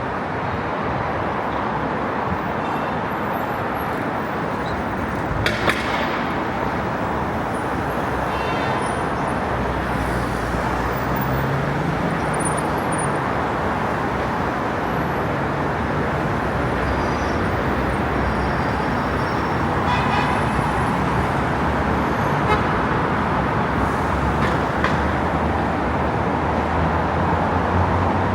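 Steady city street traffic noise from passing vehicles, with a few short horn toots scattered through it and an engine hum growing louder near the end.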